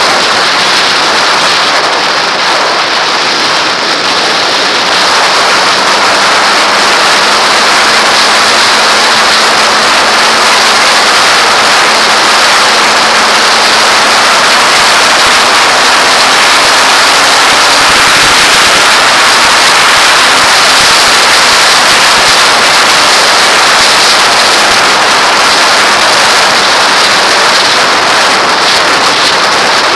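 Loud, steady wind rush over a helmet-mounted camera on a Kawasaki ZX-6R sport bike at freeway speed, with the bike's engine note faint underneath, rising slowly in pitch through the middle of the stretch and then fading back into the wind.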